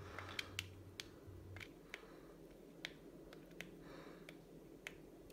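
Buttons of a handheld game controller being pressed, a dozen or so faint, sharp plastic clicks at irregular spacing.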